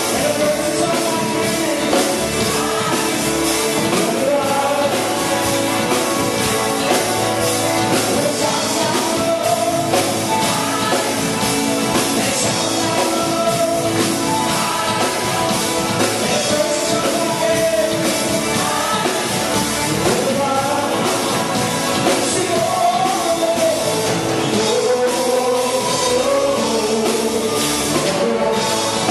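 Live worship band playing a song on drum kit, guitars and keyboard, with a singer's voice carrying the melody.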